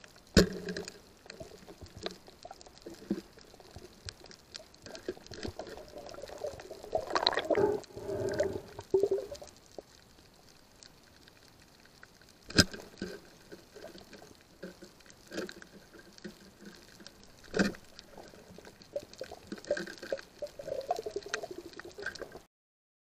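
Underwater sound picked up by a diver's camera: a faint bubbling murmur with gurgling spells, and three sharp knocks, about a second in, near the middle and a few seconds later. The sound cuts off just before the end.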